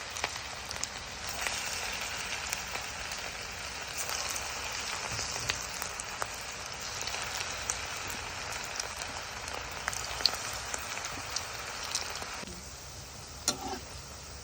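Chicken pakora batter frying in hot oil: a steady crackling sizzle with scattered pops, which turns quieter about two seconds before the end.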